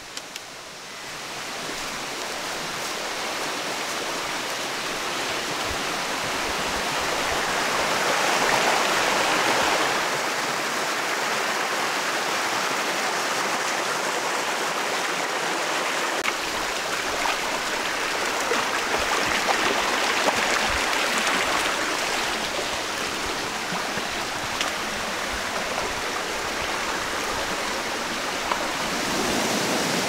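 Mountain stream running and splashing over rocks, growing louder over the first several seconds and then holding steady.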